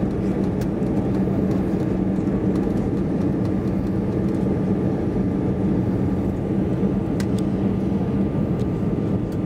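Steady cabin noise of an Airbus A320-216 on approach, heard from inside by the window: the CFM56 engines running and the rush of air past the fuselage, with a steady low hum under it.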